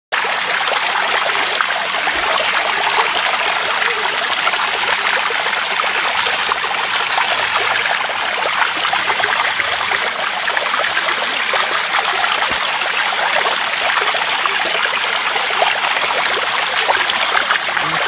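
Flowing water of a stream, a steady rushing and trickling.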